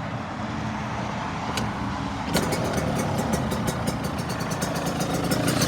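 2022 Yamaha YZ125 single-cylinder two-stroke, fitted with an FMF Fatty pipe and Shorty silencer, being kick-started. It catches about two seconds in and runs at idle with a rapid, even crackle from the new exhaust.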